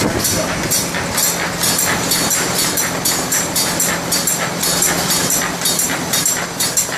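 Automatic folder gluer running at speed: a rapid, regular clacking of the feeding and folding mechanism over a steady motor hum.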